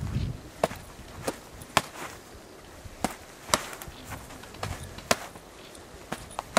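Gloved punches and blocks in light sparring: a series of sharp, separate smacks of glove on glove and arm, about ten of them at an irregular pace.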